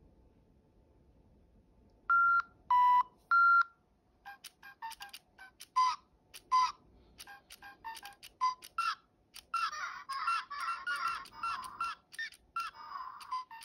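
DigiPenguins electronic toy penguins: three short high tones about two seconds in, then chirping and squawking electronic calls that build into a continuous warbling song. The toys are responding to whistling.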